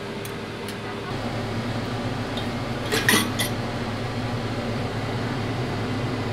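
Metal cookware and utensils clink together sharply a few times about three seconds in, over a steady hiss and low hum of noodles cooking in a steel pot on an electric stove.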